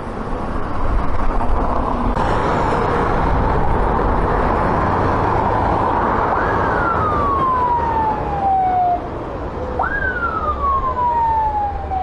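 Forest-fire tanker truck driving past with its siren giving two wails, each jumping up sharply and then sliding down in pitch over a couple of seconds, over the steady noise of its diesel engine and the road.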